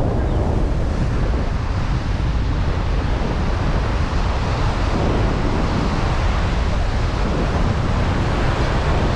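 Wind buffeting the microphone over the steady rush of heavy surf breaking on rocks.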